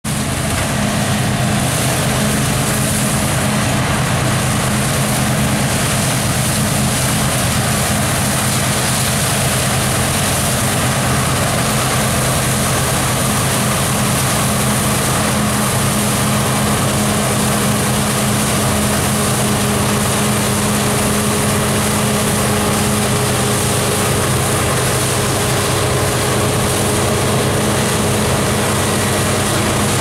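Claas Lexion 670 combine harvester at work, its engine and threshing machinery running with a steady, loud drone as it picks up windrowed chicory seed crop with a draper pickup.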